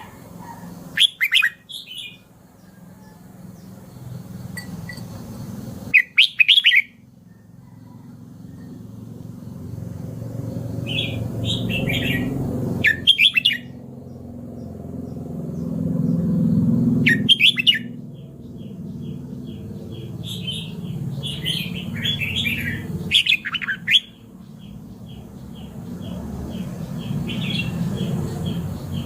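Red-whiskered bulbul singing short, loud, warbled phrases every few seconds, with a low rumble swelling in the background between phrases. A faint regular ticking, about two a second, runs under the song in the middle stretch.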